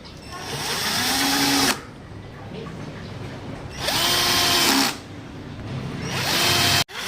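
Power drill run in three short bursts, the motor whine rising as it spins up and then holding steady each time; the first run is the longest.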